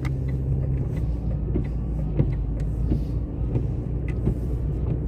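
Car engine running and road noise heard from inside the cabin while driving, the engine hum dropping in pitch about a second in, with small knocks and rattles over it.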